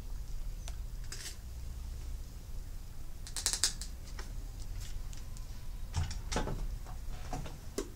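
Plastic clicks and rattles from a toy RC excavator being handled and turned over, with a short burst of rattling about three and a half seconds in. A knock about six seconds in as the model is set down, then a few more light clicks, over a steady low hum.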